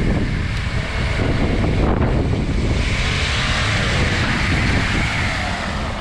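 Land Rover 4x4 driving on an off-road trail: the engine runs under heavy wind buffeting on the microphone, and a hiss swells about halfway through.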